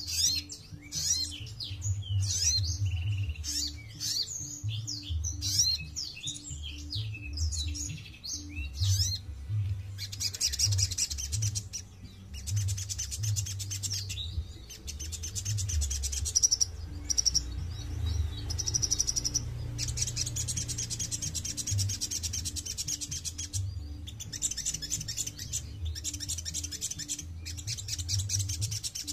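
Sunbird (sogon) singing. First comes a run of quick, varied high chirps, then long, fast, high trills of several seconds each, separated by short breaks.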